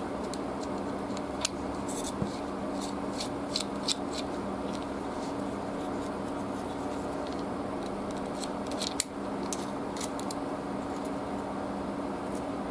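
Precision screwdriver ticking and scraping against the small screws of a SteelClaw Aspid folding knife as it is taken apart. The work is at a screw that spins in place without coming out. Scattered light metallic clicks sound over a steady low hum.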